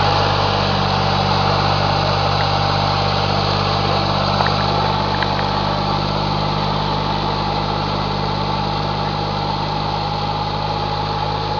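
Foton Lovol TE254 wheeled tractor's small diesel engine running at a steady, constant speed while it pulls a loaded trailer up a steep slope, a low drone with a higher steady whine over it.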